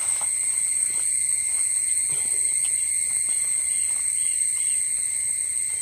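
Steady shrill insect chorus: a continuous high tone with a weaker, lower band beneath it, unchanging throughout. Faint soft ticks of hands handling wet spice paste sit under it.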